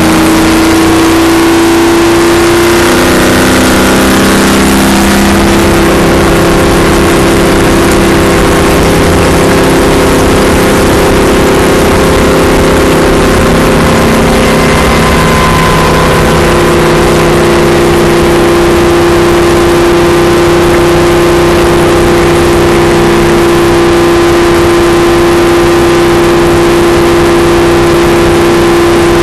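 Stock car's V8 engine running flat out at a steady high pitch, heard loud from inside the cabin along with wind and road noise. Its pitch shifts slightly in the first few seconds, then holds steady at racing speed.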